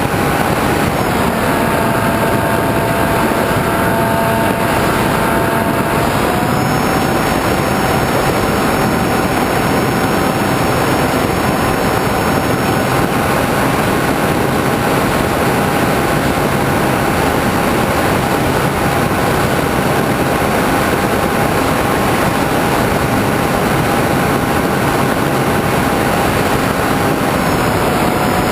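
RC model airplane's motor and propeller running steadily in flight, recorded on board under heavy wind rush. The motor pitch dips slightly about a second in and comes back up around six seconds, a throttle change.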